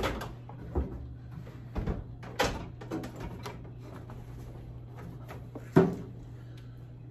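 Scattered knocks and clunks of a microwave's casing bumping against the wall mounting strip and cabinets as it is lifted and its back slots are set on the strip's tabs, the loudest about six seconds in. A steady low hum runs underneath.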